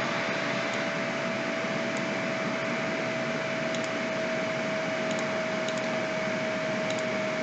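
Steady background hiss of the recording with a faint steady hum tone, and a few faint clicks.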